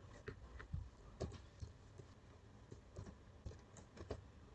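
Faint typing on a computer keyboard: about a dozen irregular single key clicks.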